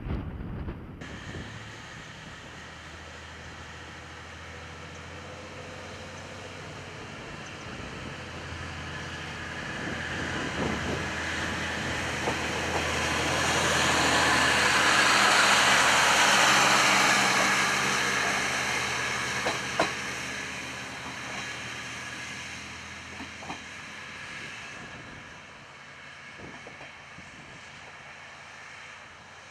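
JNR KiHa 40-series diesel railcar approaching, passing close by and drawing away, its diesel engine running and its wheels clicking over rail joints. The sound swells to its loudest about halfway through, then fades.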